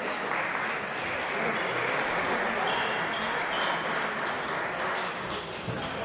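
Table tennis ball clicking sharply off bats and table, several hits in the second half, over a steady murmur of voices.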